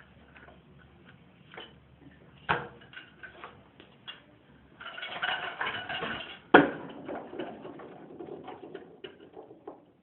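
Kick scooter on a concrete patio: wheels rolling with a rough hiss for a couple of seconds and scattered clacks of the deck and wheels against the ground. There are two sharp impacts, the louder one about six and a half seconds in.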